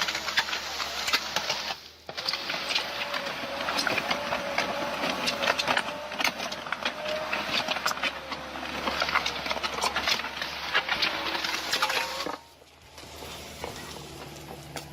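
Machinery running: a steady whine over constant clattering and ticking, broken by two abrupt cuts, the second into a quieter hum.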